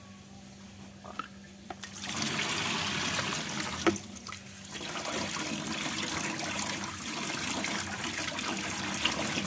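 Tap water running and splashing through a plastic colander of mushrooms into a steel kitchen sink. It starts about two seconds in, with a sharp knock near four seconds and a short break before the water runs on.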